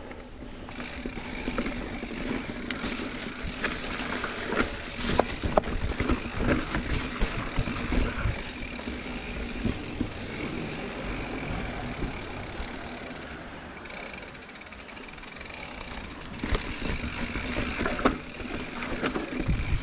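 Mountain bike riding over a dirt trail: steady tyre and trail noise with frequent clicks and knocks from the bike rattling over bumps, and a faint steady hum underneath.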